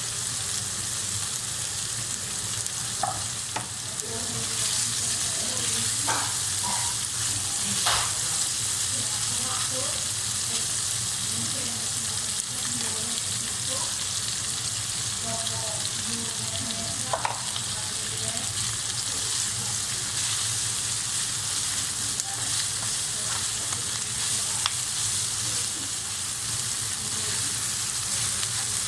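Chicken blood and chives stir-frying in a hot pan: a steady sizzle, with a few sharp clicks of the stirring utensil against the pan.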